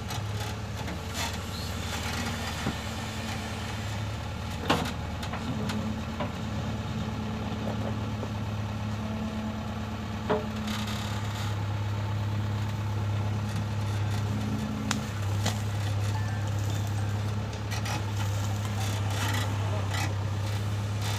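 JCB 3DX backhoe loader's diesel engine running steadily, with a few short sharp knocks over it.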